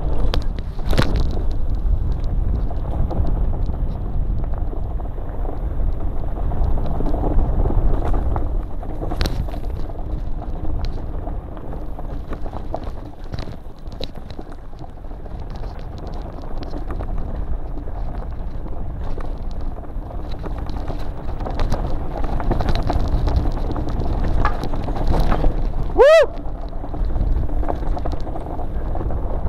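Downhill mountain bike descending a rough dirt singletrack, heard from a bike-mounted camera: a steady wind rush on the microphone with rattling and knocks as the tyres and frame run over rocks and roots. Near the end, a brief squeal rings out.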